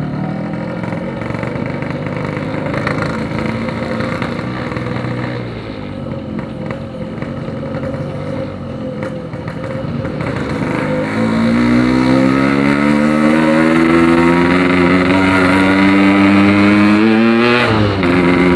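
Yamaha RX-King's single-cylinder two-stroke engine through a Packing Power aftermarket exhaust, running at a steady pitch and easing off, then accelerating hard with the note rising steadily for several seconds. Near the end the pitch drops sharply as the throttle closes or a gear changes.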